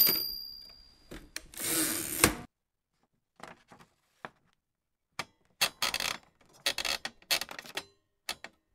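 Manual typewriter: the bell dings once and rings out briefly, then the carriage is pushed back with a short rasping slide. Scattered clicks follow, then a few seconds of rattling, ratcheting mechanism clicks.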